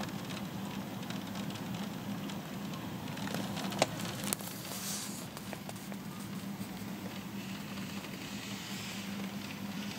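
Rain pattering as a steady hiss scattered with small drop ticks, over a steady low hum. Two sharp knocks come a little before and a little after four seconds in.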